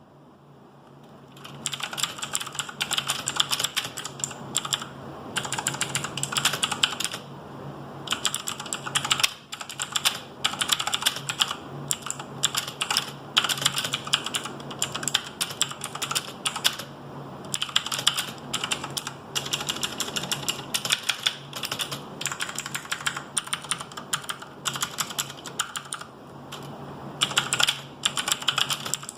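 Cosmic Byte CB-GK-16 mechanical keyboard with blue clicky switches being typed on rapidly, a dense run of sharp key clicks with short pauses, starting about a second and a half in.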